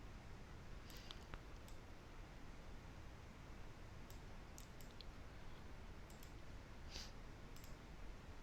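Faint, irregular computer mouse clicks, about ten spread over several seconds, over quiet room tone.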